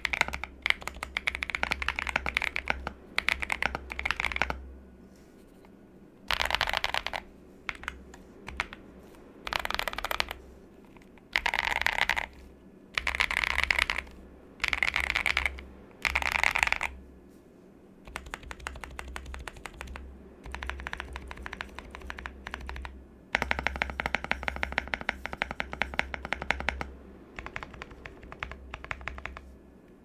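Typing on a Qwertykeys QK75 mechanical keyboard with lubed Gazzew Black Boba U4T tactile switches on a POM plate, Owlabs stabilizers and PBT keycaps. A run of ordinary typing first. Then, about five seconds in, the modifier keys are tested in quick bursts of clacks, each under a second long, with short pauses between them and a longer, denser run about two-thirds through.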